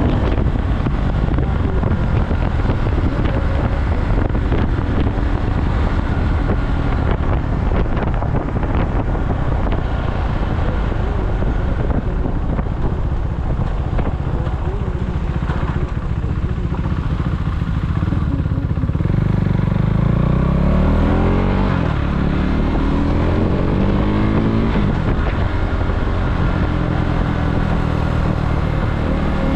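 KTM Duke motorcycle engine running while riding. About two-thirds of the way through it accelerates, its pitch rising steadily for several seconds before easing back.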